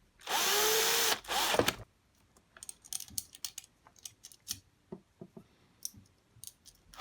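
Cordless drill-driver run in two short bursts during about the first two seconds, its motor pitch rising and falling, followed by light scattered clicks and knocks of plastic fan parts being handled and fitted.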